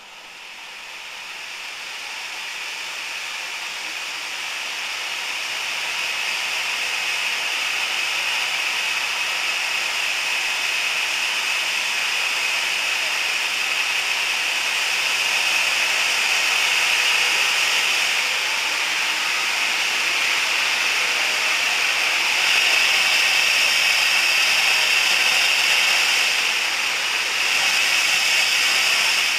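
Steam locomotive blowing off steam: a loud, steady hiss that builds up over the first few seconds and then holds without any chuffing rhythm.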